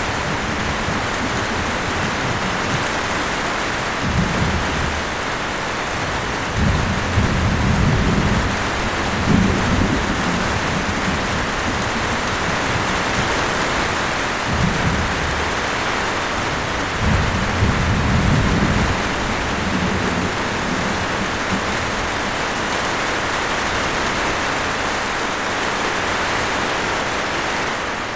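Steady rain falling, with low rolls of thunder swelling several times, the longest from about seven to ten seconds in and again around seventeen to nineteen seconds.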